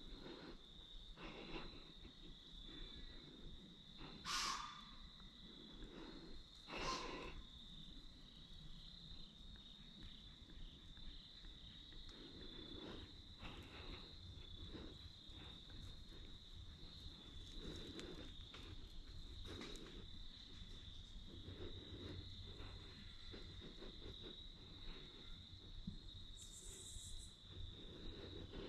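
Steady insect chorus, a continuous high-pitched drone, with a couple of brief rustles about four and seven seconds in.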